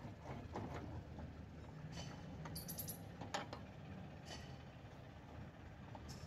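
Faint metallic clicks and clinks as wheel nuts are turned by hand onto the studs of a rickshaw's wheel hub. A quick run of small high clinks comes about two and a half seconds in, with a sharper click just after, over a low steady rumble.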